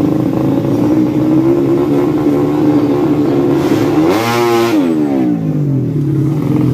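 Racing four-stroke underbone motorcycle engine running at a fast steady idle. Just after four seconds in it is revved sharply once, the pitch climbing quickly and then dropping back down over about a second.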